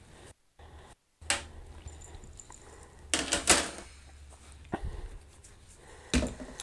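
Hard plastic parts being handled: a sharp click about a second in, a short burst of clicking and clatter about three seconds in, and single knocks near five and six seconds. The sound cuts out twice briefly before the first click.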